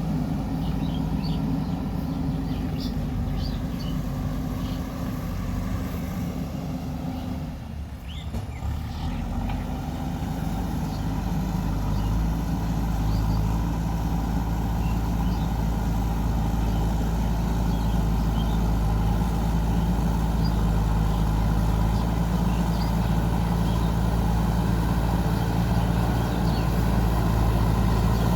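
JCB 3DX backhoe loader's diesel engine running steadily under work. It dips briefly about a third of the way in, then runs heavier and louder from a little before halfway on.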